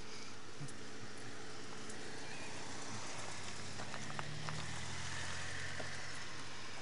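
Outdoor ambience with footsteps crunching on a gravel path, scattered light clicks. About four seconds in, a low engine hum comes in, like a vehicle running somewhere off to the side.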